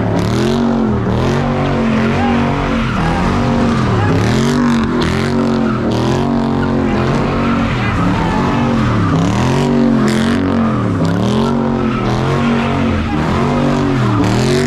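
Dodge Charger doing donuts, its engine revving up and down in waves about once a second while the rear tyres spin and screech on the pavement, throwing tyre smoke.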